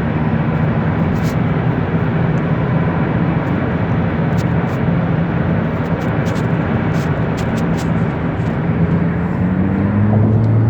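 A car driving at highway speed: steady tyre and road noise over a low engine hum, with a few faint ticks in the middle. Near the end the hum rises in pitch.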